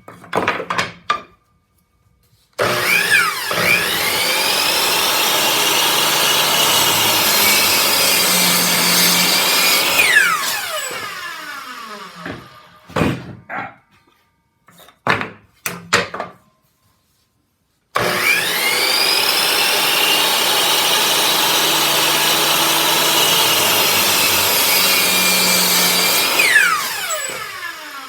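Electric power saw started twice, each time spinning up and running about eight seconds through a wood cut, then switched off and winding down. A few knocks and clicks come between the two runs.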